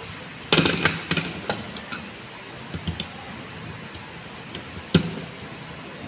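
Clicks and knocks of a screwdriver and fingers working a wire into the screw terminal block of a plastic fire alarm manual pull station: a cluster of sharp clicks about half a second to a second and a half in, a few lighter ticks around three seconds, and one sharp click near five seconds.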